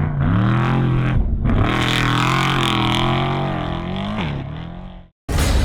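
Off-road race vehicle's engine revving hard, its pitch climbing and falling as the throttle opens and closes. The sound fades and cuts out shortly before the end, where a different loud sound starts abruptly.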